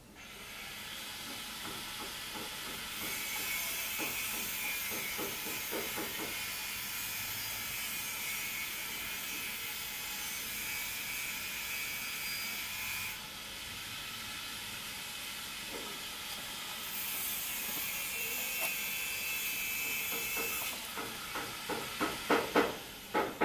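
A steady hiss with a few faint held tones. Near the end comes a quick run of sharp taps and knocks from the cardboard pump box being handled and turned in the hands.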